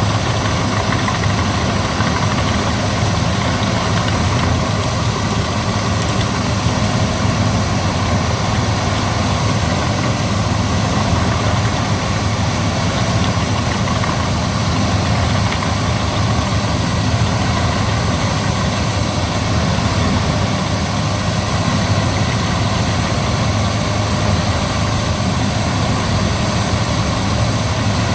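Albach Diamant 2000 wood chipper running steadily at a constant loud level, with an even engine drone and no distinct cracks or surges.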